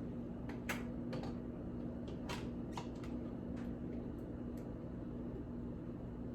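Light clinks and taps of glass pint canning jars being handled and set down, about a dozen scattered through the first four and a half seconds. A steady low hum runs underneath.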